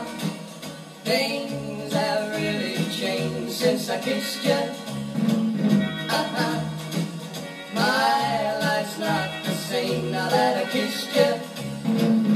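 A vocal song playing from a vinyl single on a Dansette Conquest auto-change record player, heard through its built-in speaker, with little bass.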